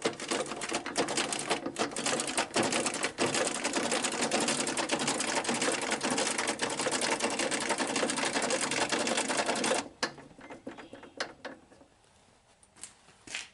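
Grizzly G0959 jointer/planer's height crank being turned, a rapid run of clicks as the planer table's height mechanism passes its indexed detents. The clicking stops sharply about ten seconds in, followed by a few scattered clicks.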